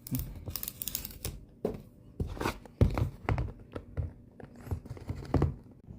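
Paper pull-tab seals being torn off a smartphone's retail box, with scratchy ripping and short knocks and scrapes of the cardboard being handled; the sharpest knock comes about three seconds in.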